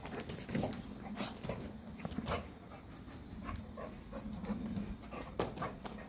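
Chow chow dog sniffing and panting right at the microphone: a run of short, irregular huffs of breath.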